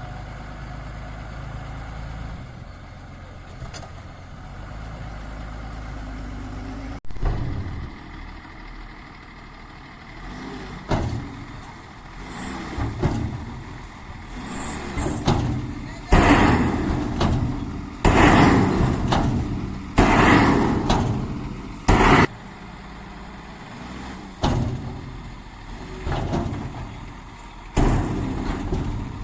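Heavy diesel machinery of an excavator loading a truck running steadily, then a series of loud, uneven noisy bursts in the second half.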